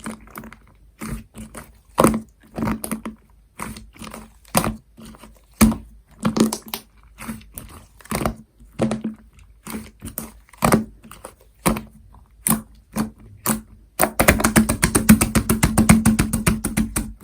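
Lemon cream slime being squished and pressed by hand, giving irregular sticky clicks and pops. For about the last three seconds it turns into a fast, dense run of crackling pops.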